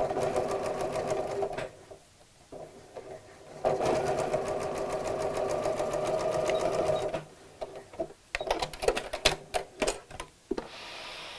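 Janome Memory Craft computerised sewing machine stitching a seam at steady speed in two runs: about a second and a half, a short stop, then about three and a half seconds more. After it stops, a quick series of clicks.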